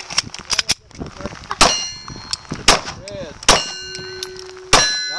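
Four loud 9mm pistol shots from a Glock 34, about a second apart, each answered by a steel plate target ringing after the hit.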